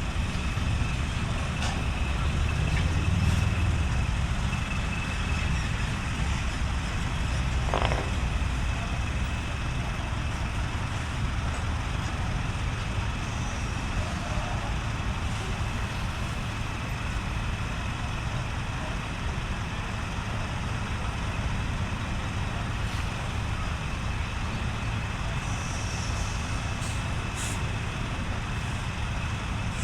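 Large truck's diesel engine running at idle, a steady low rumble that swells a little a few seconds in.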